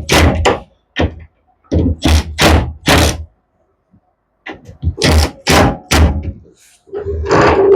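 Sharp knocks and thumps from hands-on work on boat hardware, mostly in quick runs of two or three. Near the end they give way to a rougher, continuous scraping sound.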